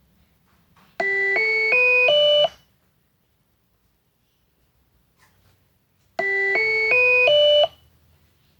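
Electronic intercom chime ringing twice, about five seconds apart. Each ring is four short, clear notes stepping upward in pitch.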